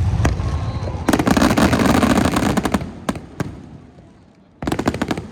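Aerial fireworks exploding: low rumbling booms, then about a second in a dense volley of rapid crackling bangs, a couple of single bangs, and another rapid crackling volley near the end.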